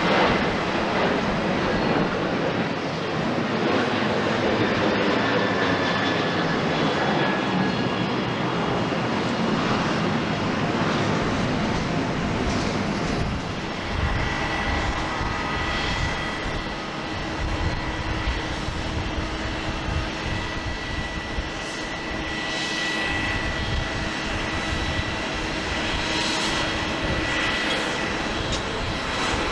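Boeing 737-800 airliner's CFM56 turbofan engines running steadily. About fourteen seconds in the sound changes abruptly to another 737-800, its engines giving a steady high whine over a low rumble.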